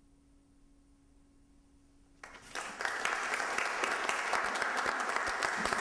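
A quiet pause, then audience applause breaks out suddenly about two seconds in and keeps going steadily.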